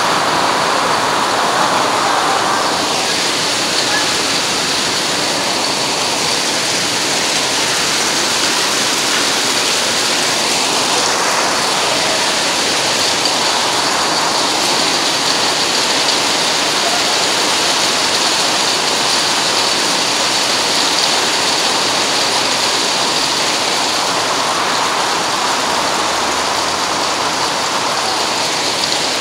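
Heavy rain pouring steadily onto wet concrete pavement and grass, a dense, even hiss of splashing drops that stays level throughout.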